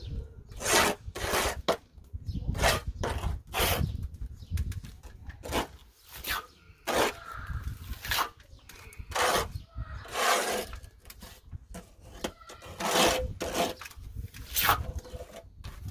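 Steel trowel scraping mortar stucco mix off a hawk and spreading it onto the wire lath around a window, in repeated, irregular scraping strokes about one a second: the first coat of stucco going on.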